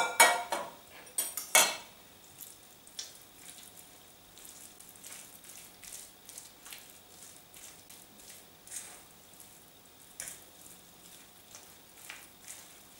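A fork mashing soft calf brain into a potato mixture in a bowl: faint, irregular scrapes and light clicks of the fork against the bowl, with two sharper clinks in the first two seconds.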